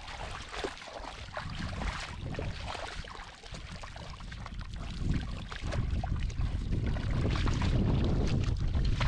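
Water sloshing and splashing with small crackling clicks; about halfway through, a louder low rumble sets in and holds.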